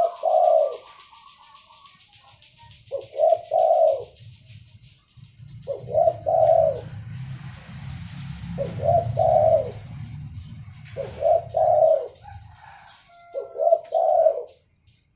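Spotted dove cooing: six short phrases of two or three notes each, one every two to three seconds. A low rumble runs underneath through the middle.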